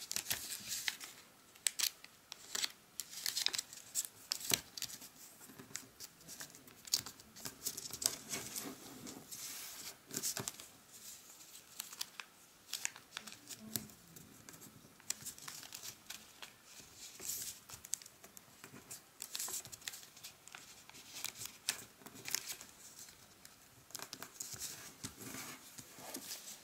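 A sheet of origami paper being folded and creased by hand into a fish base: irregular rustling and crinkling, with short sharp scrapes as the folds are pressed flat.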